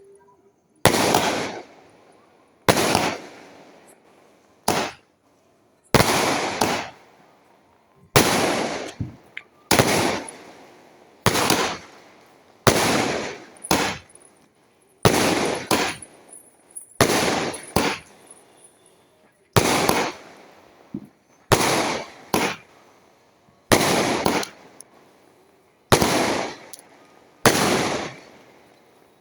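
Multi-shot firework cake (Pink Shots) firing one shot after another, about every second or two; each shot goes off sharply and fades in a short hissing tail.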